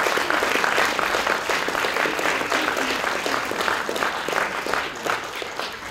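Audience applauding, dense clapping that thins out toward the end.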